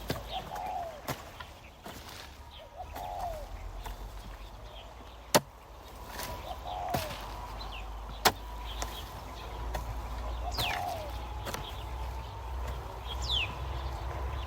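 A few sharp knocks, spaced several seconds apart, with short falling bird calls now and then.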